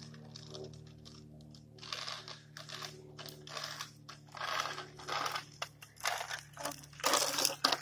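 Child's bike with plastic training wheels rolling over gritty asphalt: an irregular crunching and rattling that starts about two seconds in and grows louder as the bike comes close.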